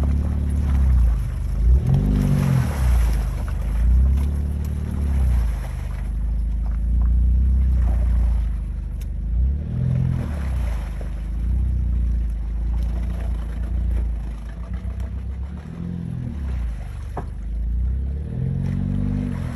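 Jeep Wrangler engine working through slushy water and broken ice, its note rising and falling as the throttle is pressed and eased about every eight seconds. Scattered clinks and scrapes of ice break against the vehicle.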